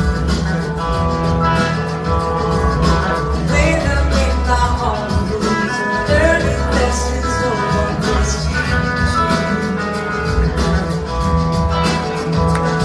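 Blues-rock band playing live: a woman sings over electric guitars, bass and drums, with a heavy low end.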